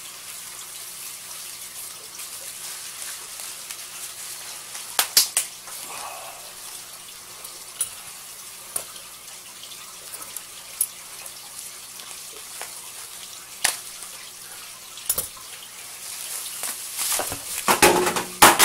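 Plastic bubble wrap and packing crinkling and rustling as packed items are lifted out of a cardboard box. Scattered sharp crackles give way to a dense burst of crackling near the end, over a steady background hiss.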